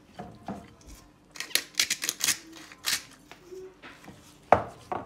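Salt shaker shaken over raw fish in a few quick rattling bursts, followed by a single sharp knock near the end.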